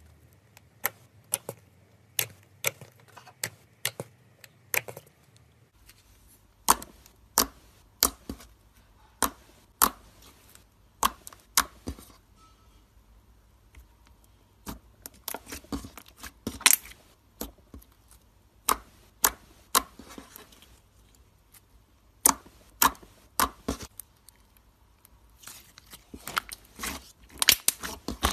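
Clear glitter slime being pressed and poked by hand, giving a string of sharp clicking pops, roughly one or two a second, bunching into quicker runs now and then.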